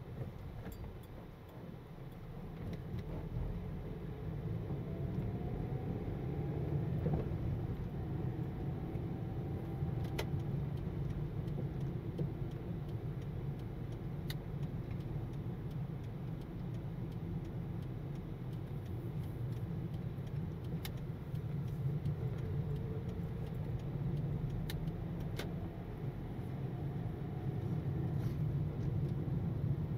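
A car driving: steady road and engine noise, with a faint rising whine twice as it picks up speed, and a few light ticks.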